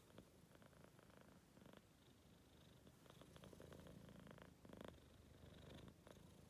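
Maine Coon kitten's faint rumbling purr, swelling and fading in a slow rhythm with its breathing, which the owner cannot tell apart from snoring.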